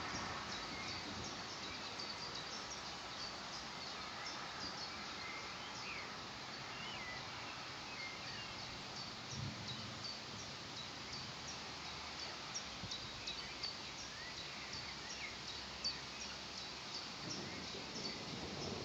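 Small birds chirping over and over in short, high, falling notes over a steady hiss, with a brief low rumble about halfway through.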